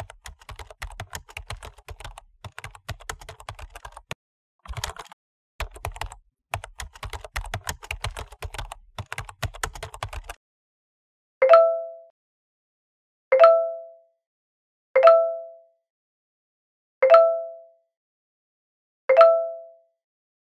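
Typing on a computer keyboard for about ten seconds, with a couple of short pauses. Then a chat app's message notification chime sounds five times, about two seconds apart, each a short ding that fades away.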